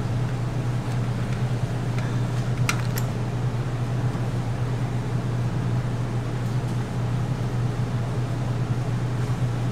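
Steady low mechanical hum of a running machine, with two faint clicks about three seconds in.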